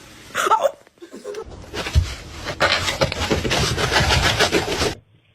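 A person laughing hard in repeated pulses for a few seconds, cut off abruptly near the end, after a brief vocal sound at the start.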